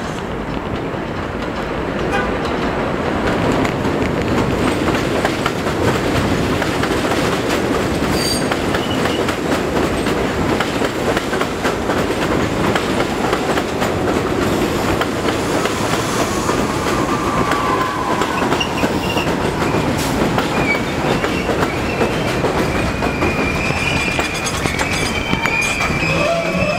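St. Louis Car Company R42 subway train running in on an elevated steel structure, its rumble and wheel clatter building over the first few seconds and then holding loud and steady. A high squeal sets in during the last third as the train draws alongside the platform.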